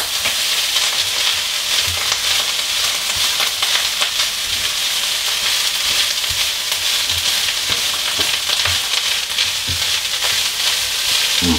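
Fried rice with chard and popcorn sizzling steadily in a hot electric wok, stirred through with a wooden spoon, with irregular soft knocks and scrapes of the spoon against the pan.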